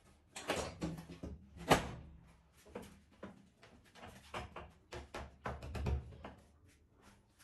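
A wall-mounted folding wooden desk top swung up on its metal hinges, with one loud knock about two seconds in as it settles into place. A series of knocks and clunks follows as a fist presses and thumps on the top to test it.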